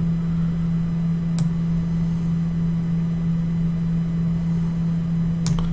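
Steady low electrical hum with background hiss, broken by two faint sharp clicks, one about a second and a half in and one near the end.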